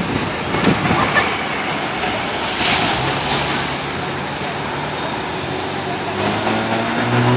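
Road traffic passing on a city street, a steady rumble with a low engine hum from about three seconds in.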